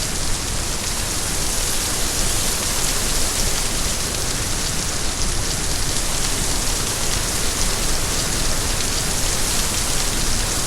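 Steady, heavy rain falling, a dense even hiss of drops with no pauses.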